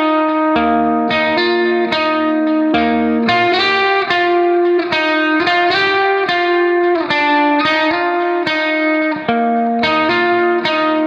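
Background music: a melody of sharply struck, sustained notes on a plucked-string instrument, a few notes a second.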